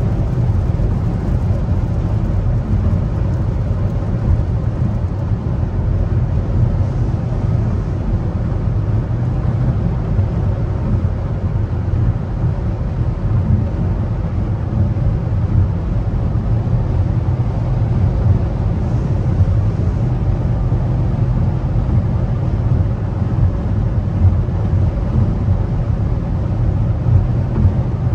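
Steady road noise inside a car cruising at highway speed: a low rumble of tyres and wind.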